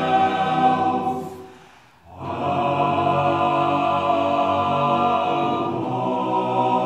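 Men's barbershop chorus singing a cappella in close harmony. A held chord fades away over about the first two seconds, and after a brief gap the chorus comes back in on another long held chord.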